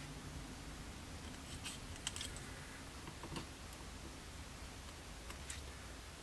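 A handful of faint, scattered clicks and taps from metal tweezers picking small strips of masking tape off a cutting mat and pressing them onto a clear plastic model aircraft canopy, over low steady room noise.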